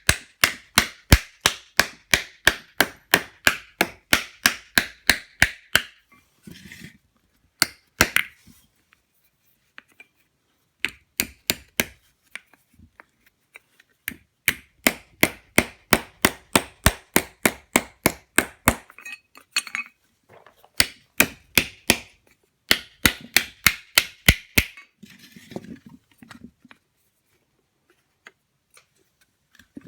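Hammer blows on thin steel sheet being cold-formed into a wooden dish to shape a repoussé lemon. The blows come in quick, even runs of about three a second, with short pauses between runs and only scattered taps near the end.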